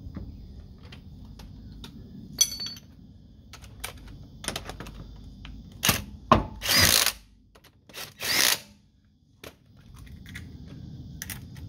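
Cordless impact wrench run in two short bursts, about seven and eight and a half seconds in, spinning lug nuts onto a wheel, amid sharp clinks of lug nuts and tools being handled, with one ringing metallic clink about two seconds in.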